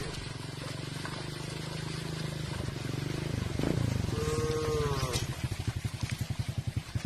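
A low, rapidly pulsing rumble runs throughout, turning into separate throbs near the end. About four seconds in, one drawn-out animal call of about a second rises and falls in pitch.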